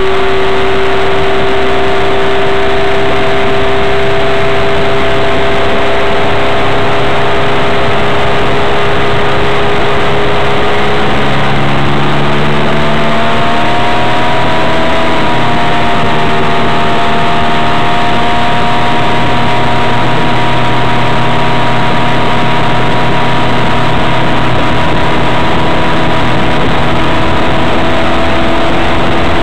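Suzuki 15 hp outboard motor running steadily at speed, its engine note shifting pitch a little about halfway through, over the rush of water.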